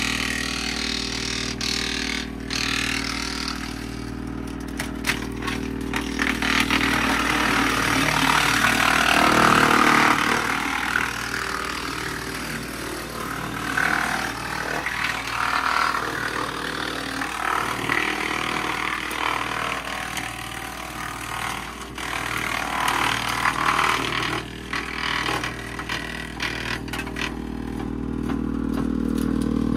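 Woodmaxx 8800 PTO wood chipper, driven by a Bobcat compact tractor's engine, chipping branches fed into its hopper. Under the steady drone of the engine and chipper, a crunching, rattling noise swells and fades as limbs are pulled in, loudest about eight to ten seconds in.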